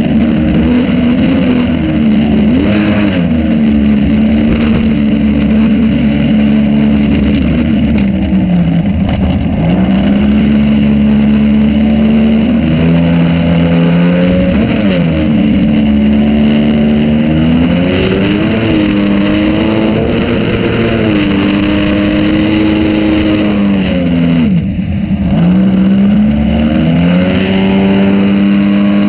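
Jet-drive motor of a jon boat running under way, its engine note dipping and climbing back several times as the throttle is eased and opened again.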